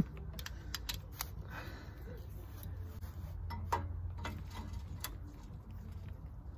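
Hand tools clicking and clinking: a socket and extension being snapped onto a long-handled ratchet and set on an exhaust bolt, a dozen or so irregular metal clicks over a low steady hum.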